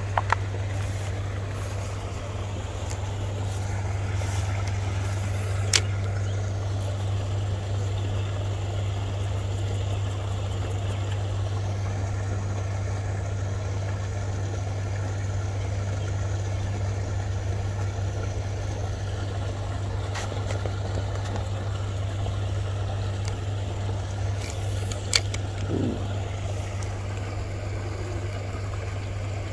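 A steady low hum with no change in level or pitch, with a few faint clicks now and then.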